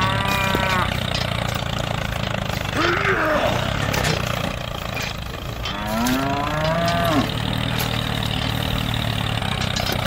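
Cow mooing three times, at the start, about three seconds in and about six seconds in, over the steady low drone of a tractor engine.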